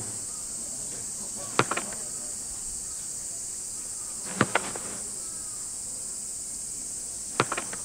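Soccer ball being kicked back and forth on grass: three sharp kicks about three seconds apart, each followed by one or two quick lighter taps. A steady high-pitched drone of insects runs underneath.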